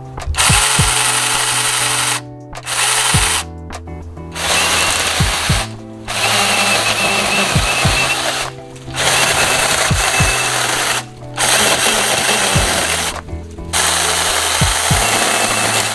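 Battery-powered 6-inch mini chainsaw running in about seven bursts of roughly two seconds each, stopping briefly between them as it cuts through woody shrub stems. Background music plays underneath.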